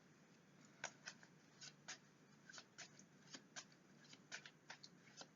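Fortune-telling cards being handled and shuffled, heard as a run of faint, irregular, crisp clicks and flicks from about a second in.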